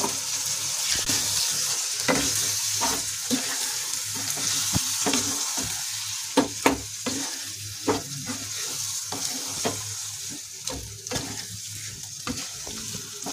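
Soya chaap masala sizzling in a hot pan, the sizzle slowly dying down, while a wooden spatula stirs through the thick gravy with repeated scrapes and light knocks against the pan.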